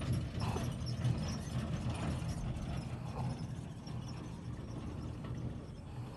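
Engine of distant heavy earthmoving machinery running with a low, steady rumble that slowly fades away, with scattered faint clicks on top.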